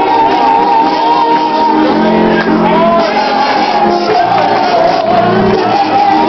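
Church congregation singing and shouting in praise over live worship music, loud and unbroken.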